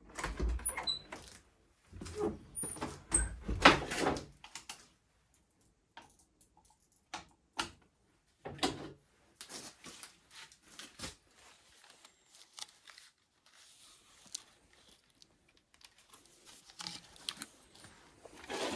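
Scattered knocks, clicks and clatter of objects being handled in a small room, loudest and busiest in the first four seconds or so, then sparse faint clicks.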